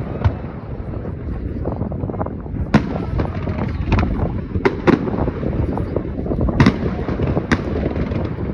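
Fireworks going off: sharp, irregularly spaced bangs, about eight of them, over a continuous low rumble of further bursts.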